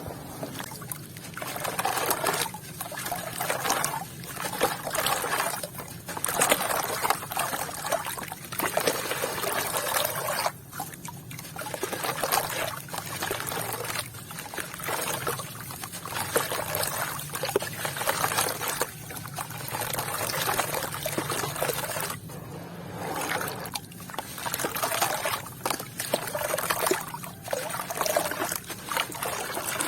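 Water trickling and pouring through wet sand and red dirt, coming in swells every couple of seconds.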